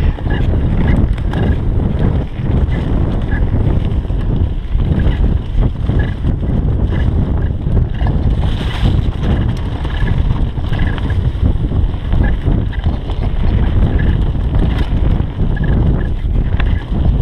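Wind rumbling on the microphone of a mountain bike speeding down a dirt and leaf trail. Tyres rolling on the trail surface are mixed in, along with frequent short rattles and knocks from the bike going over bumps.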